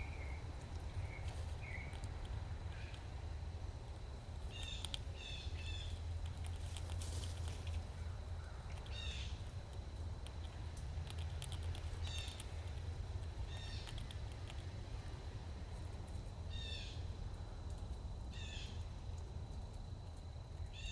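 Wild birds calling outdoors: short calls, sometimes two or three in quick succession, recurring every few seconds, with a few softer chirps in the first couple of seconds. A steady low hum runs underneath.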